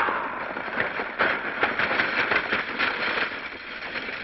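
Horse-drawn stagecoach rolling along, a continuous rumbling clatter of hooves and wheels.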